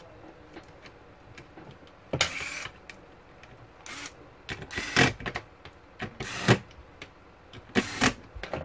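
Corded electric screwdriver running in about five short bursts, each under half a second, driving in the screws that hold a laptop's CPU heatsink and fan assembly to the motherboard.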